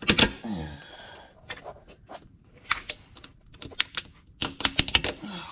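Irregular sharp clicks and knocks of metal and plastic step-mount hardware being handled and fitted onto the studs under a Ford F250's rocker panel, with a short falling tone just after the start and again near the end.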